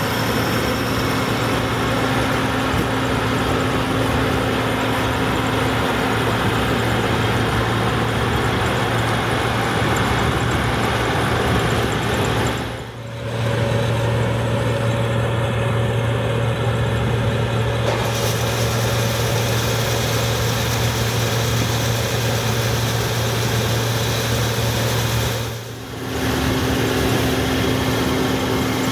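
Allis-Chalmers Gleaner F2 combine running steadily while harvesting corn, its Allis-Chalmers 301 six-cylinder diesel engine giving a strong steady hum. The sound dips briefly twice, about halfway through and near the end.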